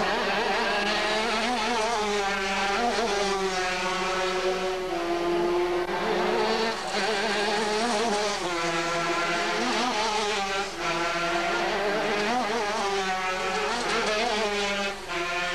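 Several 250cc two-stroke racing kart engines revving hard, their overlapping notes climbing in pitch and dropping back again and again as the karts race past.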